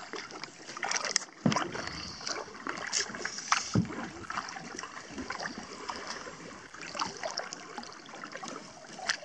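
Kayak paddles dipping into calm water, with irregular splashes and drips from the blades.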